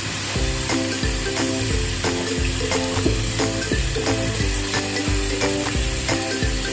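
Food sizzling as it fries in a pan, with background music with a steady beat over it.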